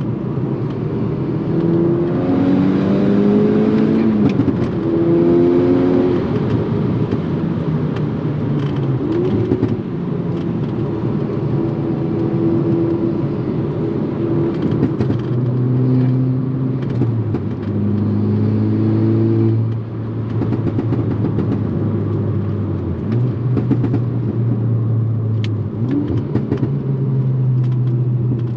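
Mk6 Volkswagen Golf R's turbocharged 2.0-litre four-cylinder with an aftermarket turbo-back exhaust, pulling through the gears: the engine note climbs, drops back at each shift, then holds steadier between further climbs. A constant road and wind noise runs underneath.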